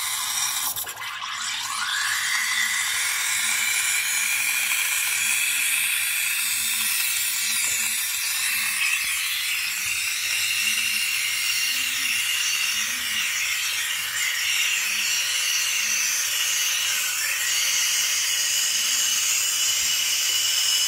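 Espresso machine steam wand hissing into a jug of milk, frothing it for a cappuccino, with a whistling tone that rises in pitch over the first couple of seconds and then holds steady. A soft low pulsing repeats beneath the hiss.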